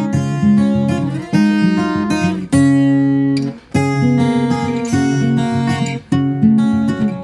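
Country music led by strummed acoustic guitar, with chords struck again every second or so.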